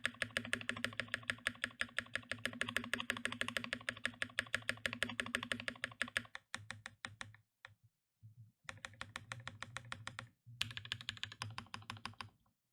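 Fast typing on a Boardsource Mark: 65 custom mechanical keyboard with lubed Durock All POM linear switches in an FR4 plate: a dense, unbroken run of keystrokes, then from about halfway through a few shorter runs broken by brief pauses.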